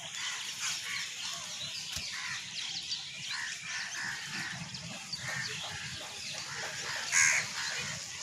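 A flock of birds gathered at a feeding spot calling over one another in a continuous chatter, with one louder call about seven seconds in.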